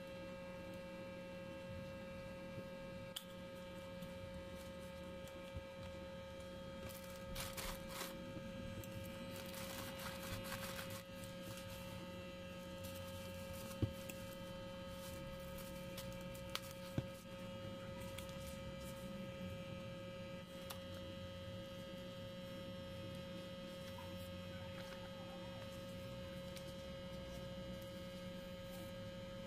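Steady electrical hum with a thin, constant whine. Over it come faint rustles of paper and plastic packaging being handled, loudest a third of the way in, and a few light clicks near the middle.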